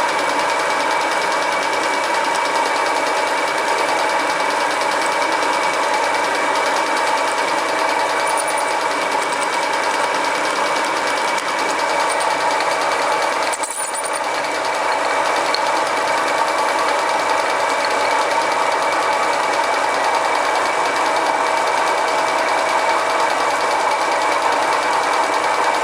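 Homemade mini lathe running under its 1 hp single-phase motor while a drill bit in it bores into hard steel: a steady machine hum with several held tones over a noisy cutting sound, dipping briefly just past halfway.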